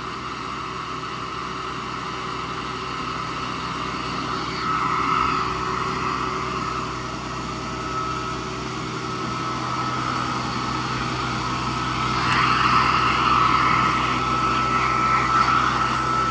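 Hoover Model 28 vacuum cleaner running steadily with a high steady whine over a low hum. The rushing air noise swells louder about four seconds in and again about twelve seconds in.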